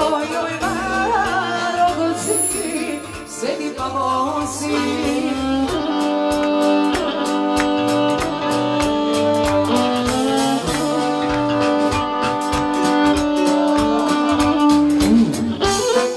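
Live Serbian folk music played on an electric violin over a steady drum beat, with a woman's singing voice in the first few seconds. From about five seconds in, the music settles into long held notes.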